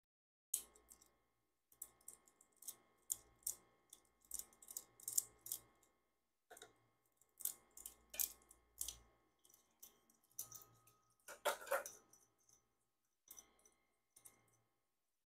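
Small metal tool parts being handled: a long irregular series of faint sharp clicks and clinks, the loudest cluster about three quarters of the way through.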